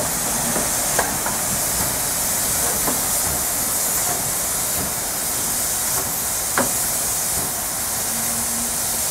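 Steam hissing steadily from a PKP class Ol49 steam locomotive, with a sharp metallic click about a second in and another past the middle.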